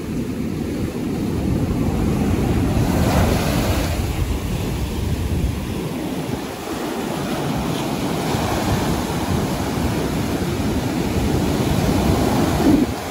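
Surf breaking and washing up a beach, swelling as waves crash about three seconds in, again around eight seconds, and loudest just before the end. Wind buffets the microphone with a low rumble throughout.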